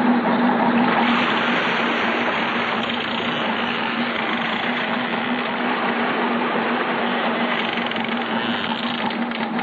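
A small fishing boat's engine running steadily under way, a constant hum beneath a steady rush of wind and water.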